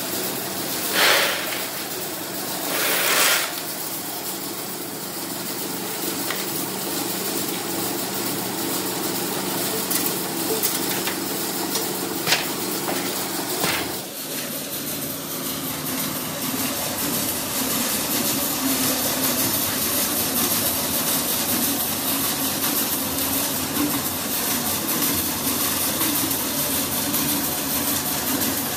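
Workshop machinery running with a steady hum and several steady tones. Two short noisy bursts come in the first few seconds, and a few sharp metallic knocks follow later. The machine noise changes character about halfway through.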